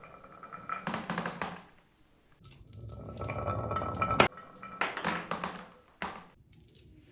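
Glass marbles rolling down a marble run track, a rolling rumble with a faint ringing tone, clicking and clacking against the track pieces. A sharp click about four seconds in, then a quick run of clacks that stops near the end.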